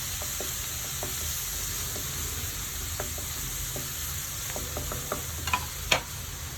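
Garlic sizzling in hot coconut oil in a pan, frying to brown, with a spoon scraping and tapping the pan as it is stirred. A sharper clink comes shortly before the end.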